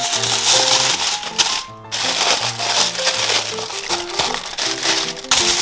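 Background music with a simple melody, over loud crinkling of aluminium foil as it is handled and folded around a rack of ribs.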